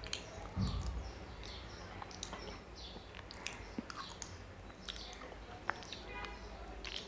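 Close mouth sounds of eating soft sweet yogurt off a plastic spoon: wet smacking and small clicks, with the spoon scraping the plastic cup near the end, and a dull low thump under a second in. Birds chirp over and over in the background.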